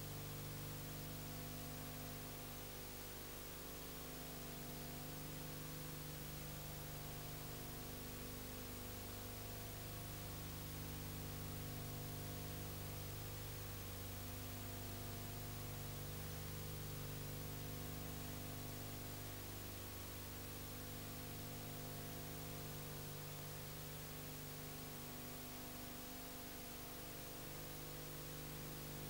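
Steady electrical hum with a layer of hiss, unchanging throughout, with no other sound.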